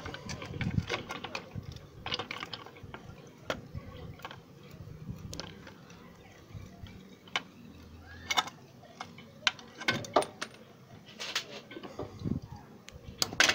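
Scattered light metal clinks and knocks, about a dozen spread irregularly, as a motor tricycle engine's alternator cover and parts are handled.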